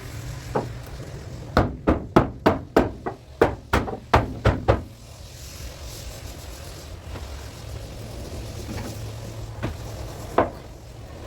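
Hammer blows on car body metal: a quick run of about a dozen strikes, roughly three a second, then a few single knocks near the end, over a steady low hum.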